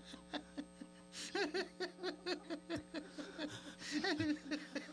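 A man laughing in a long run of short, rapid chuckles, about four a second, louder near the end, over a steady low drone.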